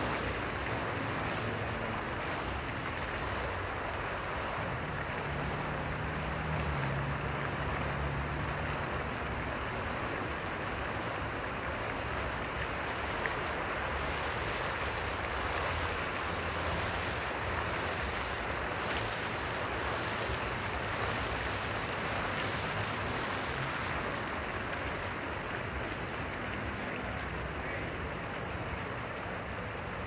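Fountain jets and sprays falling into a basin, a steady splashing rush of water.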